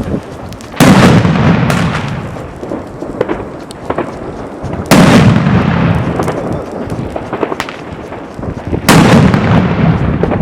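Three heavy firework explosions about four seconds apart, each a sudden loud bang followed by a long echoing rumble, with scattered small cracks in between.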